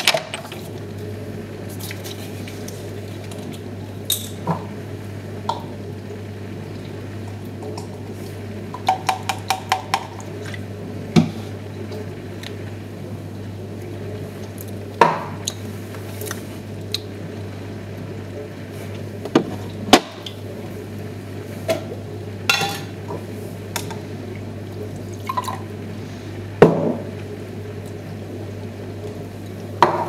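Glass jars and bottles clinking and knocking on the door shelves of an open fridge as food is taken out and put back. There is a quick run of small clinks about nine seconds in, and a few louder knocks later, over a steady low hum.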